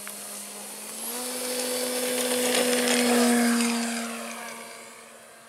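Radio-controlled model airplane's motor and propeller at full power for a takeoff: a steady drone that steps up in pitch about a second in, grows louder as the heavily loaded plane rolls and lifts off, then fades as it flies away.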